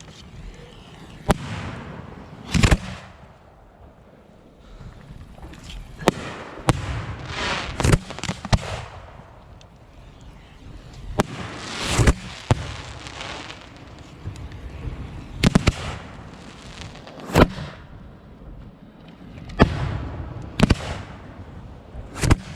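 Fireworks going off: about a dozen loud, sharp bangs at uneven intervals of one to four seconds, with noisy stretches between the reports.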